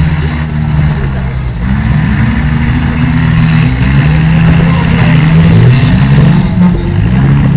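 Several four-cylinder demolition derby cars' engines revving at once, their pitches rising and falling over one another.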